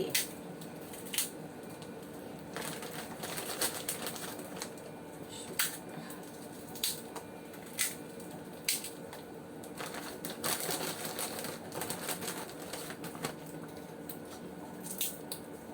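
A cooking spoon clinking and scraping against a pot while stirring: irregular sharp clicks with stretches of scraping, over a faint steady hum.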